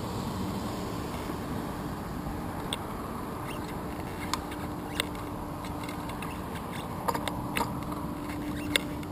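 A bicycle rolling along asphalt, picked up by a handlebar-mounted GoPro Hero 2: a steady rumble of tyre and wind noise with a faint hum. About six sharp clicks and rattles are scattered through the second half.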